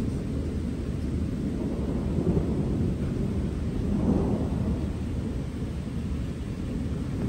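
Rolling thunder rumbling low and continuously, swelling about two seconds in and again about four seconds in, over a fainter hiss of rain.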